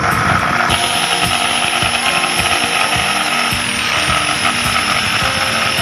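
Total 400W corded jigsaw cutting a curve through 1x6 hardwood: the motor runs steadily while the reciprocating blade chatters rapidly through the wood. The tone turns brighter and hissier about a second in.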